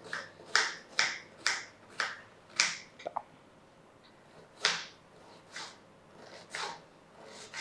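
Knife chopping an onion into small pieces: crisp cuts about two a second, then, after a short pause, slower cuts about one a second.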